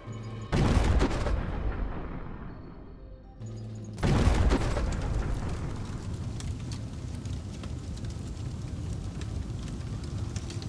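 Two loud explosion blasts about three and a half seconds apart, each dying away. After the second comes a long crackling rumble with many sharp pops, like burning and cook-off, that cuts off abruptly near the end. Faint background music sits underneath.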